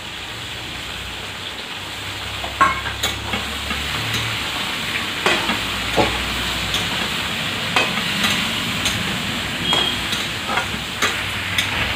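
Vegetables sizzling in hot oil in a metal kadai while a long metal spoon stirs them. The spoon scrapes and knocks against the pan every second or so.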